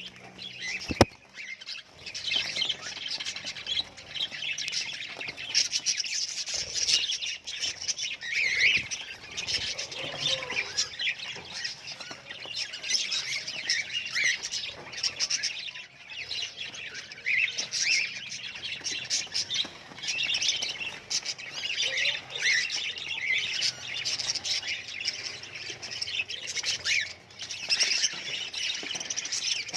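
Budgerigars chattering: a dense, unbroken run of short, high chirps, with a sharp click about a second in.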